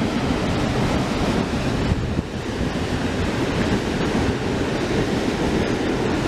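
Passenger train of coaches rolling over a railway bridge overhead: a steady rumble of wheels on the rails.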